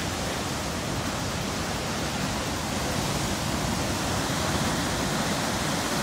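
Huka Falls on the Waikato River: a huge volume of water rushing through the rock chute and crashing into the pool below. It makes a steady, loud, even rush of water noise with no break.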